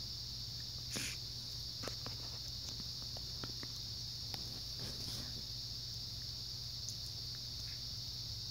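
A steady high-pitched drone with a low hum beneath it, and a few soft clicks and taps scattered through, the loudest about a second in.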